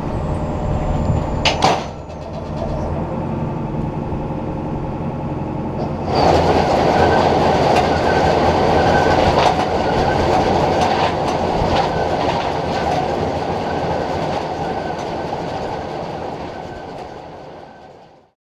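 Tractor and Vermeer 605H round baler running in the field. About six seconds in, the sound gets louder and fills with a dense mechanical rattle and clatter over the steady engine hum, then fades out near the end.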